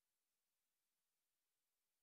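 Near silence: a faint, even hiss with no other sound.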